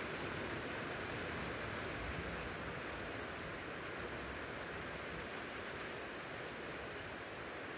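Steady outdoor hiss of an approaching storm, with no thunder or other distinct sounds.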